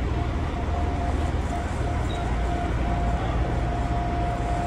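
Gakunan Railway electric train running, heard from inside the passenger car: a steady low rumble of wheels on the rails with a steady whine held at one pitch.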